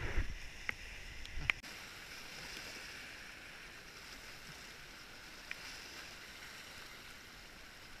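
Small waves washing against rocks, heard as a steady hiss, with a few sharp knocks in the first second and a half.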